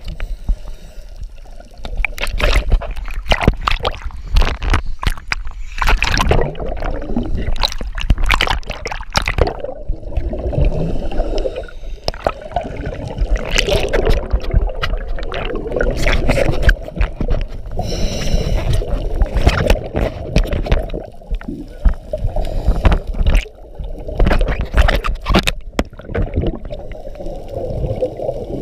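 Scuba regulator exhaust bubbles gurgling and crackling underwater, heard through a GoPro's waterproof housing. The noise comes in repeated surges with short lulls between them.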